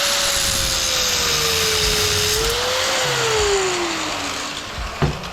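Electric power tool motor running loud and steady, its pitch sagging as it works on a cast-aluminum toilet handle, then winding down about four seconds in. A sharp knock near the end.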